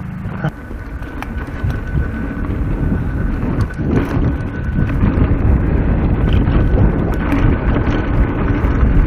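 Wind buffeting an action camera's microphone and tyres rumbling over dirt singletrack as a mountain bike gets going, getting louder as it gathers speed, with scattered clicks and rattles from the bike.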